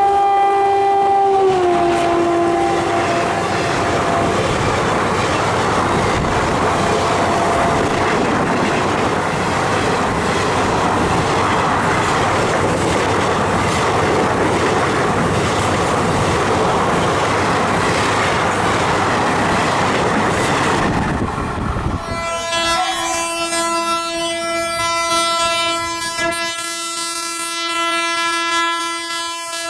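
Indian Railways express train passing at speed. Its electric locomotive's horn sounds and drops in pitch about a second and a half in, and then the coaches run by in a long, loud rush of wheel and rail noise. About 22 seconds in, the sound cuts sharply to a second electric locomotive sounding a long, steady horn as it approaches.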